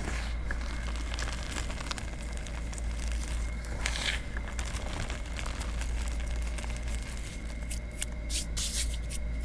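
Fingers pressing, rubbing and squeezing into a thick layer of loose white chalk and cornstarch powder, a continuous soft crunching and crackling. A louder scrunch comes about four seconds in, and a quick run of crisp crunches near the end.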